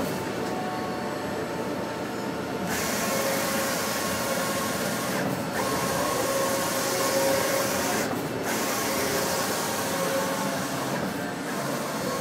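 NUR Fresco II 3200 eight-colour roll-to-roll wide-format printer running as it prints: a steady mechanical whir and hiss with a couple of steady hums. The hiss drops away briefly about every three seconds.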